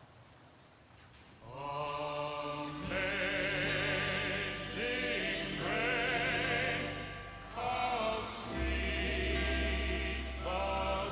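A hymn begins about a second and a half in: voices singing with vibrato over a sustained accompaniment. A deep bass note comes in near the end.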